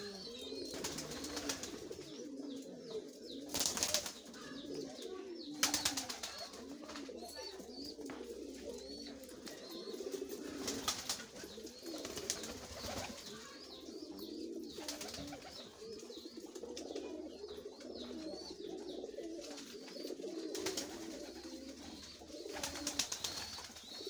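Many domestic pigeons cooing continuously, their low calls overlapping. Several short bursts of wing flapping break in every few seconds.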